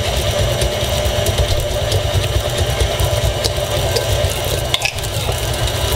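KitchenAid stand mixer running steadily, its paddle attachment beating butter in a stainless steel bowl.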